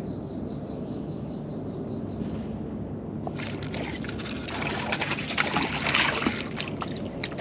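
A hooked bream splashing and thrashing at the water's surface as it is reeled in. The splashing starts about three seconds in and is loudest near the end.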